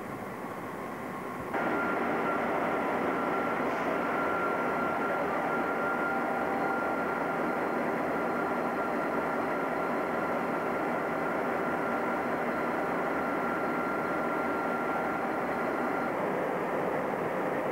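Diesel locomotive engine running steadily, a dense mechanical drone with a steady high whine over it. The sound gets suddenly louder about a second and a half in, and the whine drops away near the end.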